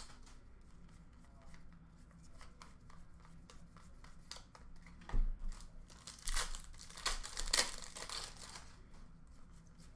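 Hockey trading cards and opened foil pack wrappers being handled and sorted by hand: soft rustling and crinkling, with a few louder swishes in the second half.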